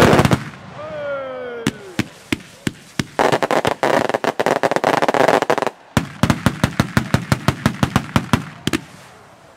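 Mascletà firecrackers going off: a cluster of bangs at the start and a couple of tones sliding down in pitch, then a dense crackling barrage about three seconds in. This is followed by a fast, rhythmic string of sharp bangs at about seven a second, which stops shortly before the end.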